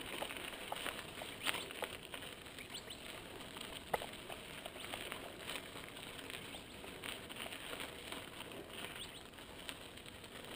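Mountain bike tyres rolling over a sandy, gravelly dirt trail: a steady light crunch with scattered, irregular sharp clicks of grit and small stones.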